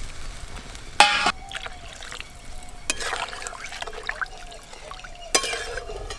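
Water poured from a steel mug into a metal kadai of hot curry masala, followed by a metal spatula stirring and scraping in the pan; this is water being added to make a thin fish curry. Two sharp metallic clinks ring out, about a second in and again after five seconds.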